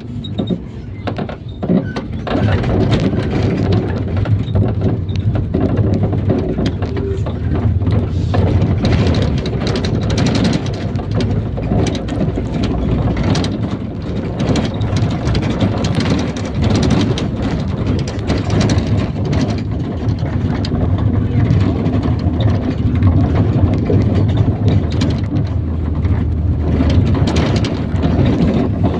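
IVECO Daily bus driving, heard from inside: its diesel engine running under steady road noise, with frequent short knocks and rattles from the body.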